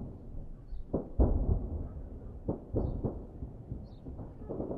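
Distant explosions: a string of dull booms, two close together about a second in, a cluster of three near the middle and another near the end, each dying away in a rolling echo.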